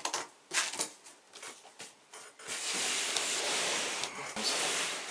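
Cardboard board game boxes being handled and set down: a few light knocks, then about two seconds of steady rustling, scraping noise as boxes slide against each other.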